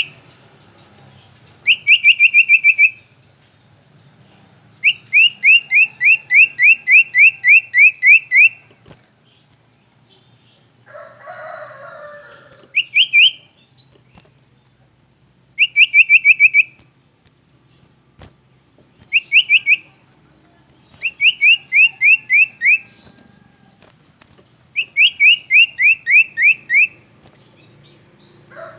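Male sirtu songbird singing in runs of quick, rising notes, about five to twelve notes per run, with pauses of a second or more between runs. A short, rougher call comes around eleven seconds in.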